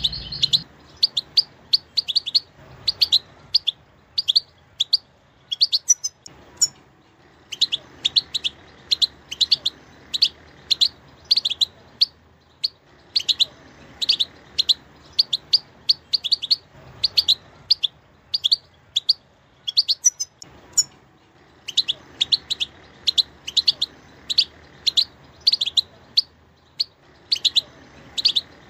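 European goldfinch singing: phrases of quick, high twittering notes, several a second, broken by brief pauses of about a second.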